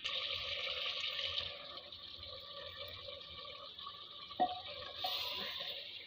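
Turnip and pea curry sizzling and hissing in an uncovered clay pot as the last of its cooking water boils off, loudest just after the start and swelling again about five seconds in. A short knock, the ladle against the pot, about four and a half seconds in.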